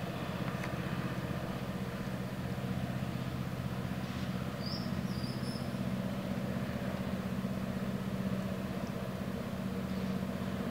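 An engine idling steadily: a low, even hum.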